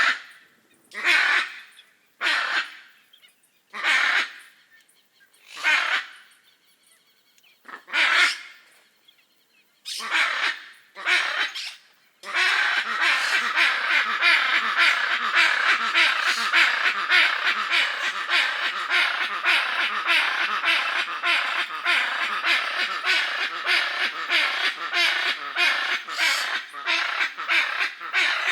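Hyacinth macaws giving loud, raucous calls: about eight separate harsh calls a second or two apart, then, about twelve seconds in, a dense unbroken chorus of rapid calls.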